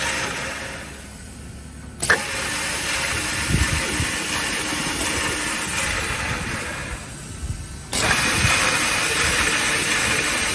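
Multi-spindle horizontal boring machine running. Its noise fades twice and comes back suddenly, with a click about two seconds in and again near eight seconds in.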